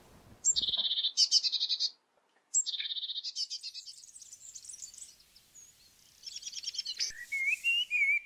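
Songbirds singing: two bright trilled phrases, each about a second and a half long, in the first half, then fainter chirps, a quick run of high notes and a lower warbling phrase near the end.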